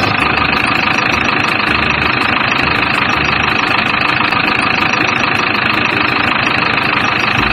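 Steady engine running sound for a toy JCB backhoe truck on the move, with a constant high whine and fast even ticking over a low rumble.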